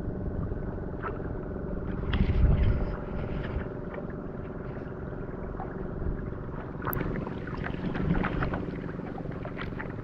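A small boat's motor humming steadily on the water, with light splashing and lapping around the hull and a brief low rumble about two seconds in.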